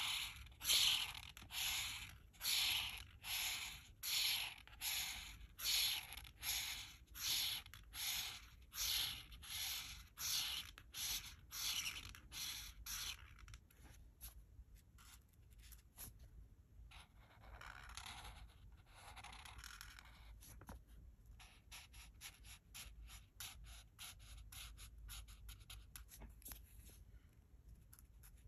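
Art marker nibs rubbing on colouring-book paper in back-and-forth colouring strokes. There are about one and a half strokes a second for roughly the first half, then fainter, shorter strokes.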